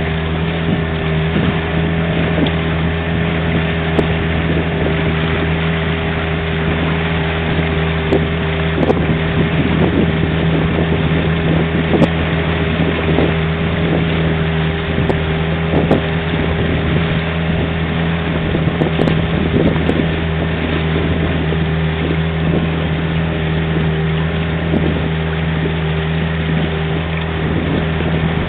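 Small boat's motor running steadily, a constant droning hum, with wind buffeting the microphone now and then.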